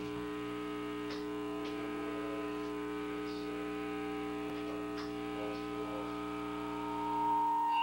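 Steady electric hum from the band's amplified gear, a held buzzing drone with a few faint clicks. Near the end a higher steady tone swells in on top.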